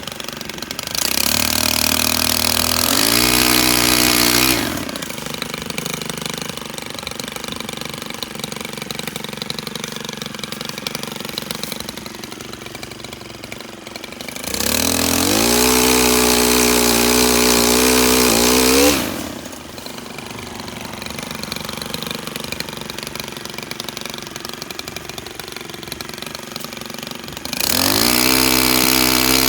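STIHL KM 131R gas power head driving a pole saw, idling and revved to full throttle three times for a few seconds each, the pitch climbing as it speeds up.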